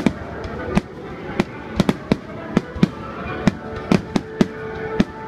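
Fireworks going off in a rapid, irregular string of sharp bangs, about three a second, over a steady background murmur, with a held tone joining about two-thirds of the way in.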